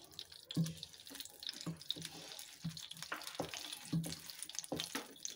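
Ghee heating with a cardamom pod in a small pan, crackling faintly with irregular small pops and bubbling.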